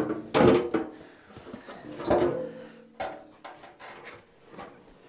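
A steel inner fender panel knocking and scraping against the truck's body as it is worked into place in the wheel well, with a few sharp knocks spread out about a second apart.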